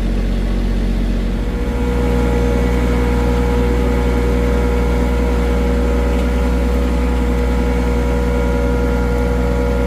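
Tractor engine running steadily, its note stepping up slightly about a second and a half in and then holding at that speed.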